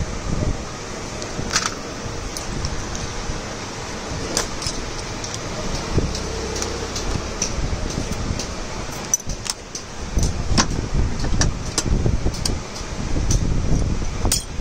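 Irregular small metallic clicks and clinks as the spring and lock pieces of a Delco starter motor's Bendix drive, held in a bench vise, are worked by hand, over a steady low rumble of background noise.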